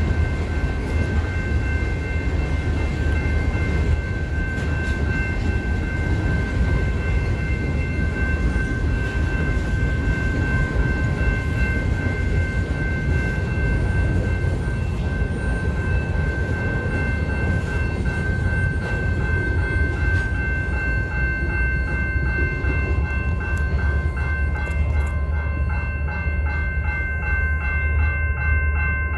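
Freight cars of a CN train, tank cars and covered hoppers, rolling past with a steady low rumble of wheels on rail and steady high ringing tones over it. In the latter part a railroad crossing bell dings rapidly and evenly.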